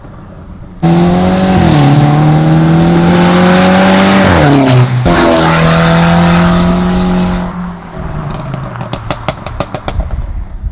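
Mercedes-Benz E300's turbocharged four-cylinder at hard acceleration through a valved catback exhaust with catless downpipes. It is loud, with a steady high-revving note that briefly drops in pitch about a second and a half in and again around five seconds in. Near the end it fades into a rapid string of exhaust crackles and pops.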